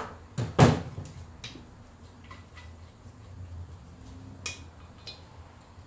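A metal exhaust pipe assembly being handled on a workbench: one loud knock about half a second in, then a few light metallic clinks.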